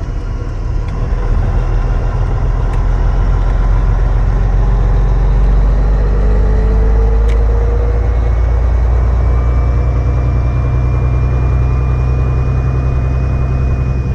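Grain truck's engine running with a steady low drone, heard loud from close by, with a few faint steady whines above it.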